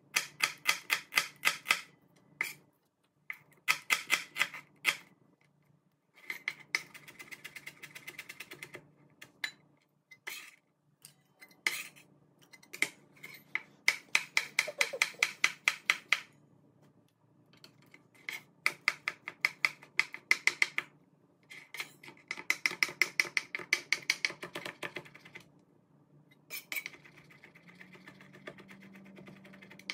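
Chef's knife chopping quickly on a plastic cutting board, about six strokes a second, in runs of a few seconds with short pauses between: dicing red onion, then chopping portobello mushroom.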